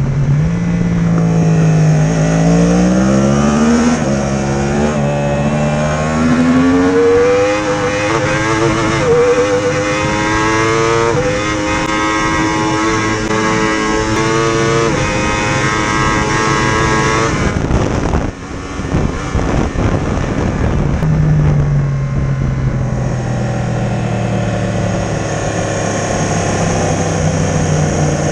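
Racing motorcycle engine heard from onboard at full race pace, its pitch climbing in repeated steps as it accelerates up through the gears. About eighteen seconds in the sound drops briefly and suddenly, then the engine carries on with a slowly falling pitch.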